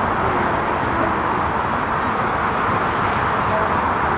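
Jet airliner engines running, a steady rushing noise that holds at one level throughout.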